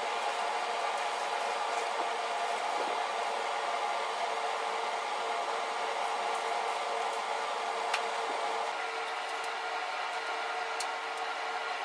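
A small motor-driven blower running steadily, a constant whine over an airy hiss, with a few faint clicks.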